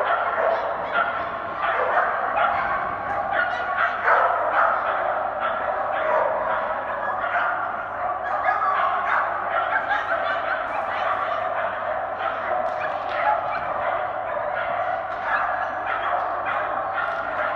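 Small dog barking and yipping over and over, in rapid, almost unbroken short yaps while it runs an agility course.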